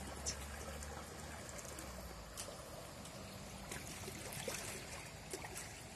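Faint sea water washing against shoreline rocks: an even hiss with a few small ticks.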